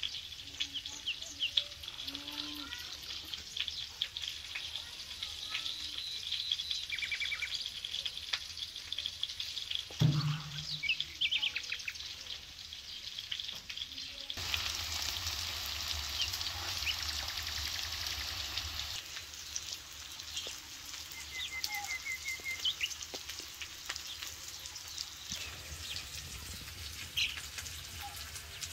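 Small birds chirping and trilling now and then over a steady outdoor hiss, with a short falling sound about ten seconds in.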